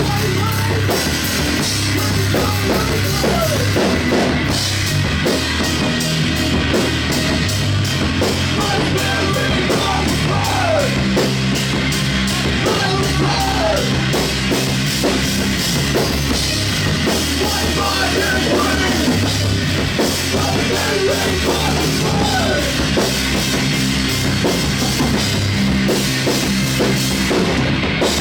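Live post-hardcore band playing loud and steady, with distorted electric guitar over a pounding drum kit and no vocals.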